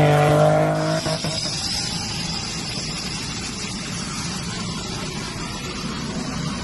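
A car engine revving and then falling in pitch, cut off about a second in; then a steady rushing noise with a faint high whine from a military jet taxiing.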